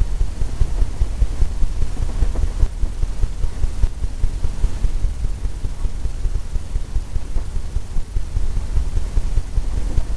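Oil-paint brush dabbing and tapping on a stretched canvas, a quick uneven run of dull low thumps, several a second.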